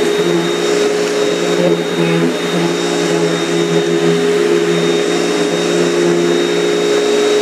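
Hoover WindTunnel upright vacuum cleaner running steadily over a floor strewn with dirt, its motor and fan giving a steady hum with a thin high whine above it.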